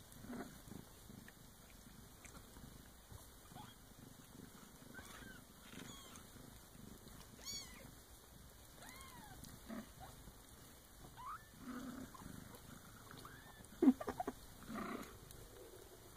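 Newborn Bengal kittens mewing in short, high squeaks that rise and fall, scattered through, over a low purr from the nursing mother cat. A quick cluster of sharp knocks near the end is the loudest sound.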